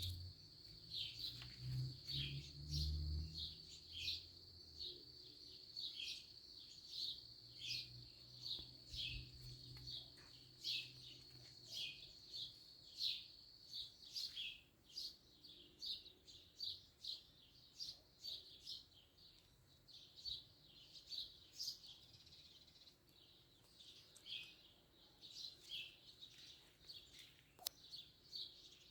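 Birds chirping in short repeated notes, about two a second, over a steady high-pitched hum; a low rumble comes and goes in the first half.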